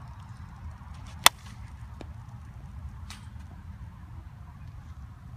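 A softball bat striking a softball once, a sharp crack about a second in with a brief ringing tail, followed by a much fainter knock about two seconds later. A low steady rumble runs underneath.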